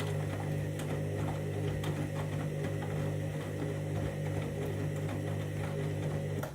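Candy washing machine running steadily in its main wash, a low motor hum with faint light ticks over it.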